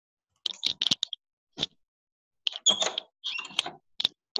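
Clicking from a computer pointing device: a few quick clicks in the first second and one more a little later, then a longer scratchy run of taps and scrapes about two and a half seconds in, and a last click near the end.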